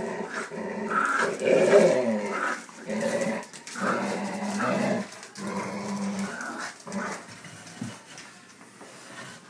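Dogs growling in play as they tug a toy between them, in uneven bouts that are loudest about two seconds in and die down after about seven seconds.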